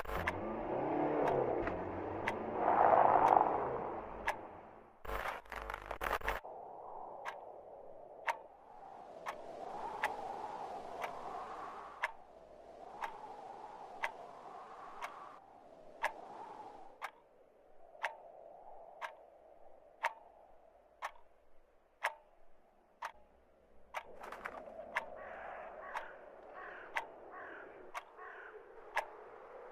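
Clock ticking steadily, about one tick a second, over a faint hiss. A louder rushing noise fills the first few seconds.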